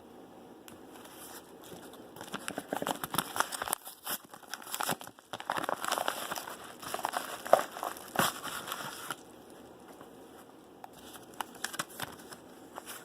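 Packaging crinkling and being torn open by hand, in irregular bursts of crackle and rustle through the middle few seconds, with quieter handling clicks before and after.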